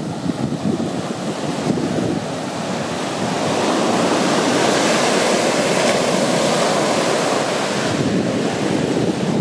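Small waves breaking and washing up a sandy beach, with wind buffeting the microphone. The surf swells louder about four seconds in and eases near the end.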